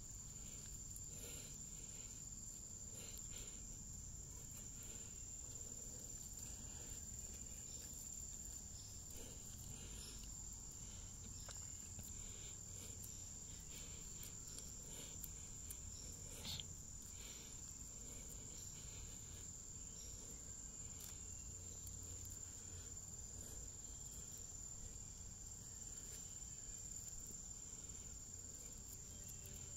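Faint, steady high-pitched insect trill that runs unbroken, with one short click about halfway through.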